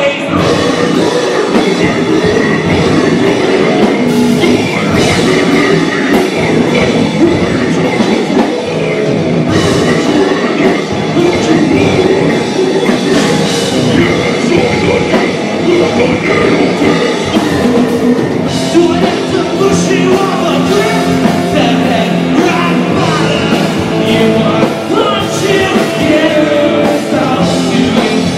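Live heavy rock band playing loud: electric guitars through Marshall amplifiers, bass, drums and a vocalist singing into a microphone.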